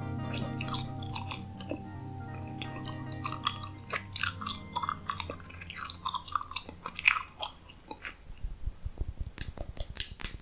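Close-miked gum chewing: wet, irregular mouth clicks and smacks. A soft background drone fades out about four seconds in, and a few low thumps come near the end.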